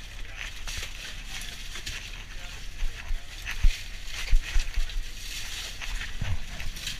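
Iced fish being dug out of crushed ice by gloved hands: ice crunching and scraping, with irregular knocks and thumps in the second half, over a steady low rumble.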